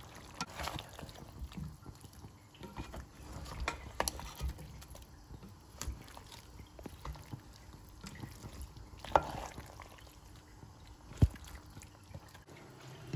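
A spatula stirring a thick vegetable stew in a granite-coated pot: wet squelching of the vegetables and sauce, with a few sharp clicks of the spatula against the pot.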